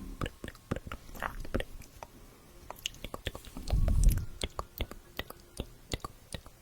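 Close-miked ASMR mouth sounds: many irregular wet clicks and smacks of tongue and lips. A louder, deeper rush of sound comes a little after the middle.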